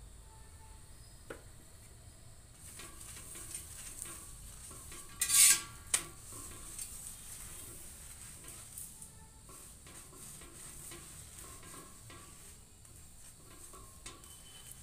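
Oil sizzling on a hot tawa under a frying roti, starting a couple of seconds in, with light clinks of utensils and a brief loud clatter about five and a half seconds in.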